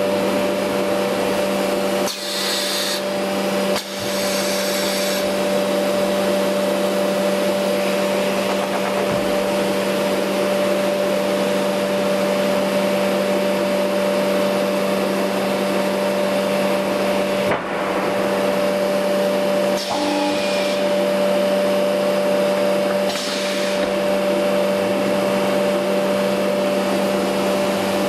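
Steady loud drone of a CNC router line's vacuum system running, with a few short hisses of air about two, four, twenty and twenty-three seconds in as the suction-cup loader handles the board.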